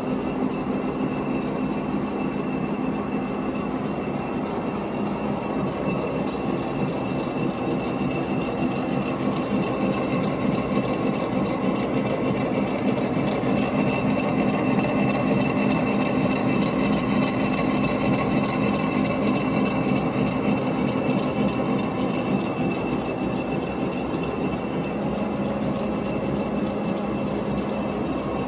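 Monarch engine lathe running under power feed while a boring bar cuts inside a long steel pipe. It is a steady machining sound with constant whining tones, slightly louder through the middle.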